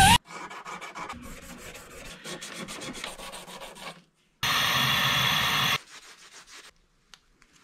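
Abrasive rubbing and scraping against a copper spoon as it is sanded and polished, in fast, uneven strokes. About four and a half seconds in, a louder steady whirring sound lasts over a second, then a few faint scrapes follow.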